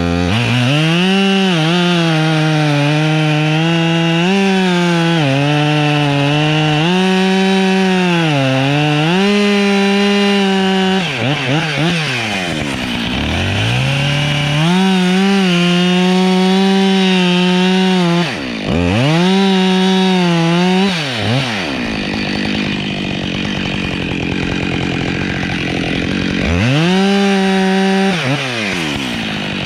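Husqvarna 572XP two-stroke chainsaw running near full throttle while cutting pine. Its pitch sags and recovers again and again, with deeper dips several times as the throttle is eased off between cuts.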